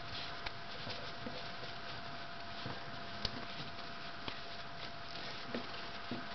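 Pet rat's claws clicking and scrabbling on the side of a chest of drawers as it climbs, in light irregular taps, one a little louder about three seconds in, over a steady background hiss.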